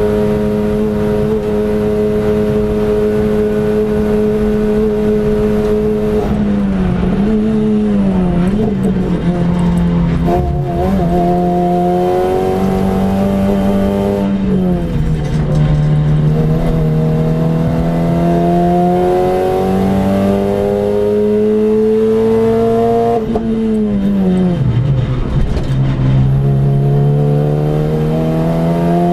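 Renault Clio RS four-cylinder engine under hard driving, heard from inside the cabin. It holds steady at high revs for about six seconds, then the pitch falls and climbs through several gear changes, drops steeply as the car brakes near the end, and rises again as it accelerates away.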